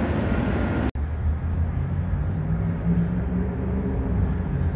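Freight train rolling past: a broad rushing noise of wheels on rail cuts off abruptly about a second in. It gives way to a duller, low rumble with a steady hum as an autorack car goes by.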